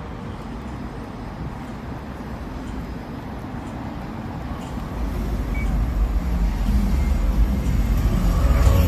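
Low rumble of road traffic, growing louder about halfway through as a vehicle comes close, loudest near the end.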